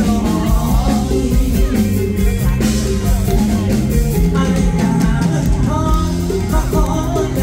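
Live band playing a Thai luk thung song through the stage PA: a male lead singer's amplified voice over a drum kit and bass.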